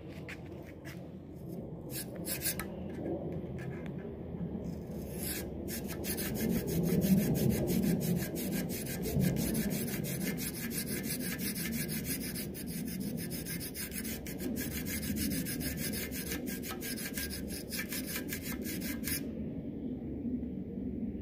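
A wire galley brush on a long rod, worked back and forth inside the oil passages of a Willys L134 engine block: a steady scraping rub, with a dense run of scratchy clicks from about six seconds in until near the end. The passages are being scrubbed clean of sludge and loose foundry sand during the rebuild.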